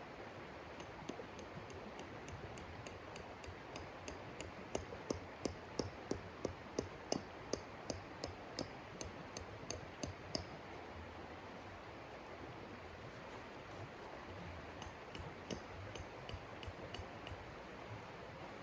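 A run of light, sharp clicks or clinks, about three a second for several seconds, then a looser run of fainter ones near the end, over a steady hiss.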